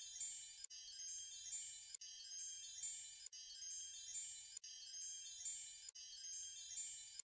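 A soundtrack of high tinkling chime tones played as a short loop, restarting about every second and a third.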